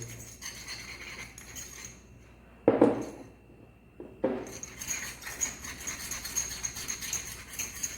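A spatula clinking and scraping in a small pot as heat-cure acrylic resin powder and liquid are mixed. There is a sharp knock about three seconds in, and rapid light clicking and scraping through the second half.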